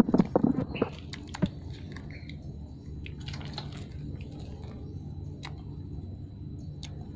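Puppies suckling from their mother: wet sucking and smacking, busiest and loudest in the first second, then fainter scattered smacks over a steady low hum.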